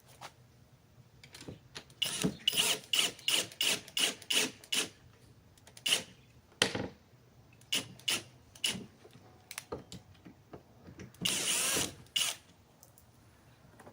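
Screws being driven in to fasten an RV door lock. A quick run of short tool bursts, about two to three a second, is followed by scattered single bursts and one longer run near the end as the screw seats.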